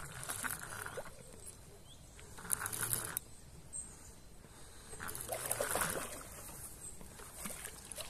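A hooked carp splashing and thrashing at the water's surface in three short bursts while it is played in close to the bank.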